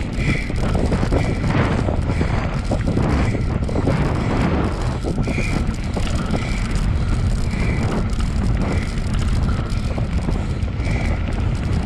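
Bicycle rolling fast over a dirt trail with wind buffeting the microphone, a steady rumble throughout. A short squeak repeats about once a second over it.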